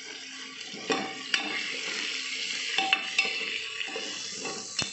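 Chopped onion and green chillies sizzling in hot ghee in an aluminium pressure cooker, stirred with a metal ladle that clinks and scrapes against the pot about five times.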